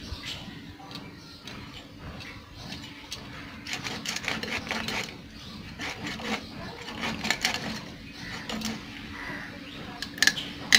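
A whole fish being scraped and cut against the fixed curved blade of a boti: irregular rasping scrapes and small clicks in bursts, with two sharp knocks near the end.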